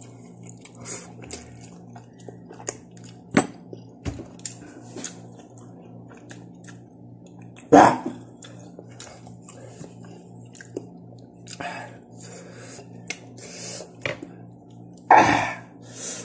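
A person chewing and eating spicy instant noodles close to the microphone, with many small wet smacks and clicks and two louder noisy bursts, about halfway and near the end, over a steady low hum.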